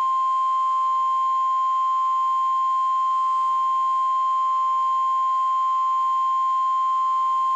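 NOAA Weather Radio 1050 Hz warning alarm tone: one loud, steady, unbroken beep that signals a warning message is about to be read.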